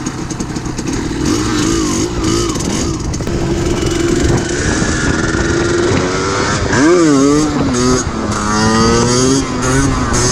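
Yamaha DT 125 two-stroke single-cylinder engine revving up and down while riding. About seven seconds in it revs sharply up and drops back, then climbs steadily in pitch over the last two seconds.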